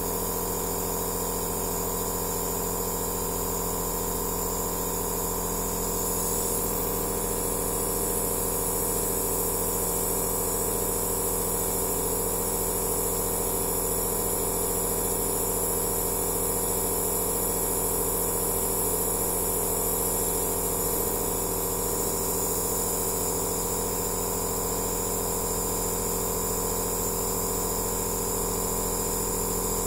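Aerosol therapy machine (compressor nebulizer) running steadily: an even motor hum under a constant hiss of air.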